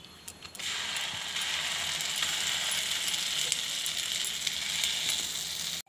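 Ground masala paste going into hot, foaming butter and oil in a pan. A faint crackle jumps to a loud, steady sizzle about half a second in, with light crackling through it.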